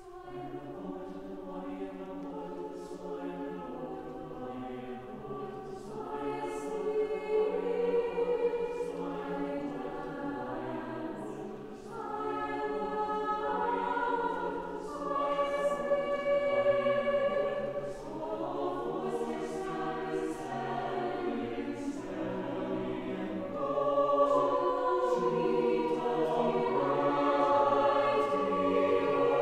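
Mixed choir of men's and women's voices singing in parts, holding sustained chords that change step by step, with soft sibilant consonants. The sound swells louder at several points, most of all in the last few seconds.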